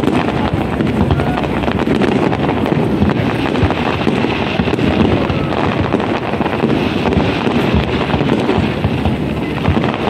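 Fireworks display: a dense, unbroken run of bangs and crackles, with wind noise on the microphone.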